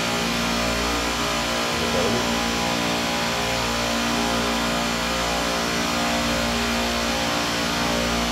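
Emerson Copeland Scroll Digital compressor on a refrigeration rack running after start-up: a steady hum with several held tones over an even hiss.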